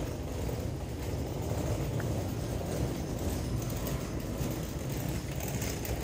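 Suitcase wheels rolling steadily over a paved street, a continuous low rumble.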